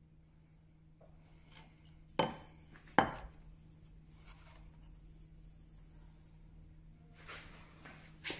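A steel bench chisel set down on a wooden workbench: two sharp knocks about a second apart, each with a short metallic ring. Faint light handling noises follow near the end as thin wooden strips are picked up.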